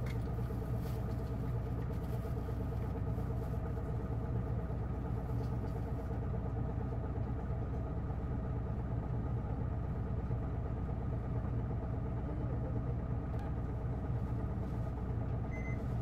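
Isuzu Erga city bus's inline-six turbo-diesel engine idling steadily, heard from inside the cabin, its pitch unchanging throughout.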